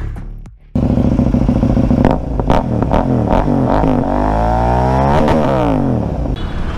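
Motorcycle engine revving hard. It cuts in suddenly about a second in, gives a few sharp cracks, then its pitch climbs steeply around four seconds in and falls away after about five seconds.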